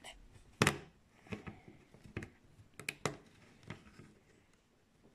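Small LaQ plastic construction pieces being handled and clicked together, about six sharp clicks and taps spread over a few seconds, the loudest under a second in.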